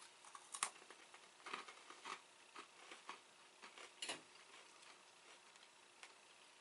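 Faint, irregular crisp crunches of someone chewing dry puffed beans, with the loudest crunches about half a second in and about four seconds in.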